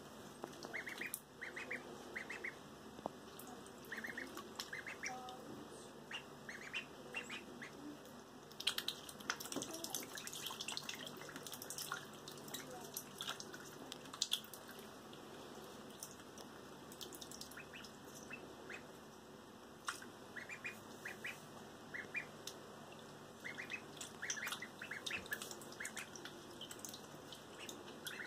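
Ducklings peeping in short bursts of calls, with the splashing and dabbling of their swimming in bathtub water; the calls and splashes come in clusters, busiest in the middle and near the end.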